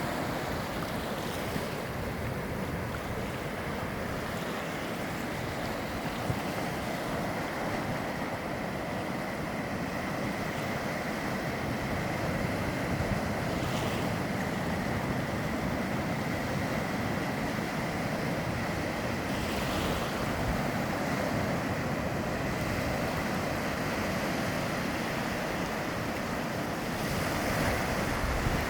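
Steady rushing of surf and wind: an even wash of noise with no distinct breaks or pauses.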